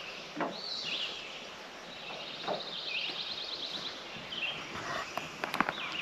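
Songbirds chirping, with a rapid trill about halfway through, over faint outdoor background noise; a few sharp clicks near the end.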